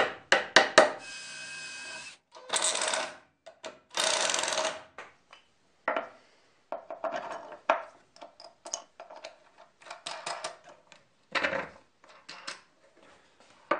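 Several quick hammer taps on a wooden plywood jig, then a short steady whine and two brief rasping bursts. After that come scattered knocks and rubs of wooden jig parts being slid and fitted.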